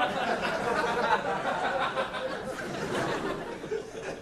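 Theatre audience laughing, many voices overlapping, easing off slightly toward the end.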